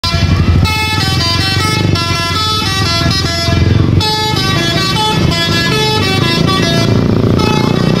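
A bus's telolet basuri musical horn playing a fast melody of held and stepping notes, over the low running of engines and motorcycles.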